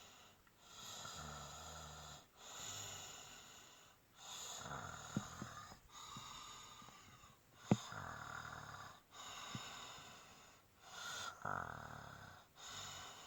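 Snoring in slow, regular breaths, one about every two seconds with a short pause between them. A few short, sharp clicks cut in, the loudest about halfway through.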